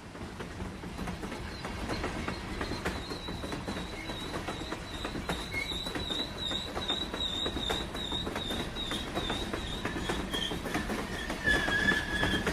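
Train rolling along the track, with wheels clicking over rail joints and a high, wavering wheel squeal that sets in a few seconds in; a second, lower squeal rises near the end. The sound swells up over the first couple of seconds.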